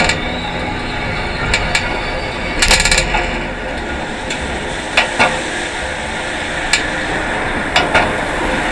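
A rusty mamachari shopping bicycle clanking and rattling as it is ridden: its rusted metal parts give sharp knocks every second or two, with a quick rattle about three seconds in. Under the knocks runs a steady rush of road and wind noise.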